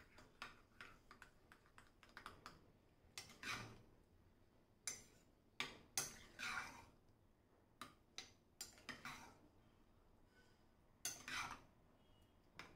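A steel spoon faintly clinking and scraping against a glass bowl at irregular intervals as soft rice and curd are stirred together and lumps are broken up.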